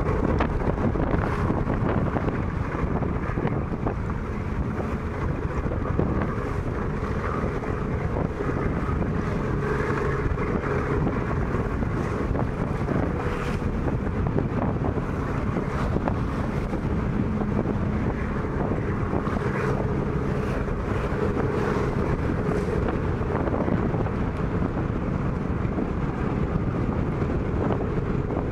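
Wind buffeting the microphone over the rush of water from a boat under way at sea, with a faint steady motor hum underneath.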